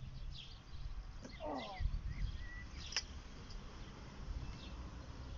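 Small birds chirping in short high calls over a low rumble, with a single sharp click about three seconds in.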